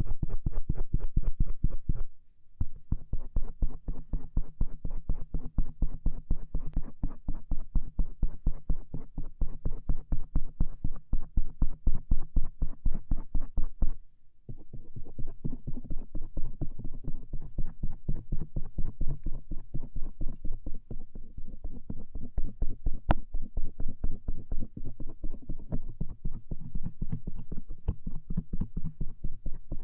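Stainless-steel ear pick rubbing and scraping across the outer ear close to the microphone, in quick repeated strokes of about four or five a second, with two short pauses.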